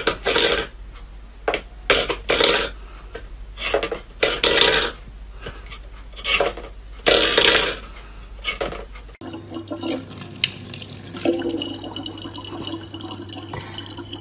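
A stainless-steel bowl pushed about on a wooden floor by a cat, scraping and rattling in a string of short, irregular strokes. About nine seconds in, after a cut, a thin stream of tap water runs steadily from a faucet into a plastic bottle.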